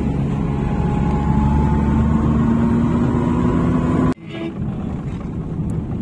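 Car engine and road noise heard from inside the cabin, the engine note rising slowly in pitch as the car speeds up. It cuts off abruptly about four seconds in, giving way to a quieter driving sound.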